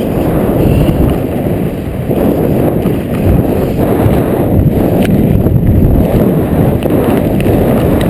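Wind buffeting a helmet camera's microphone during flight under an open parachute canopy: a loud, steady, rumbling rush of air.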